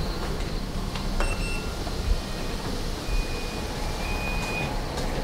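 Lift lobby with a steady low rumble as the lift arrives and its doors open, with a couple of clicks about a second in and a few faint, short high beeps.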